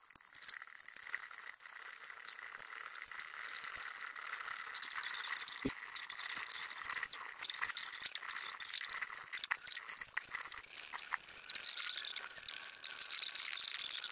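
Small maypole robots running on a concrete floor: a busy, high-pitched rattling and scraping with many small clicks and a faint steady whine, growing louder over the last few seconds.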